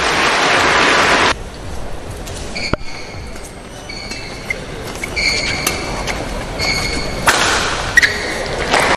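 Badminton match in an indoor arena: crowd applause for the first second or so, then a quieter rally with sharp racket hits on the shuttlecock and short high squeaks of shoes on the court, and another burst of crowd noise near the end.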